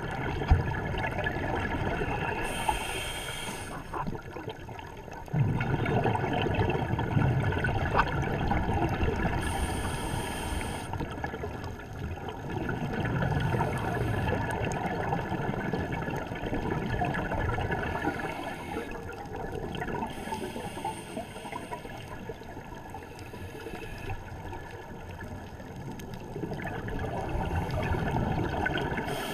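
Scuba regulator breathing heard underwater: short hisses of inhalation and about four rumbling bursts of exhaled bubbles, roughly seven seconds apart.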